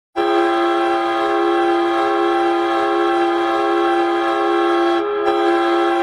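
Chippewa Steel arena goal horn sounding one long, steady blast, with a brief waver in pitch about five seconds in.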